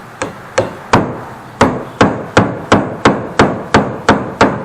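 Hammer blows on wood, about a dozen sharp strikes at roughly three a second, driving a tight-fitting leg down into its dado joint. The first few blows are lighter and more spaced, then they settle into a steady rhythm.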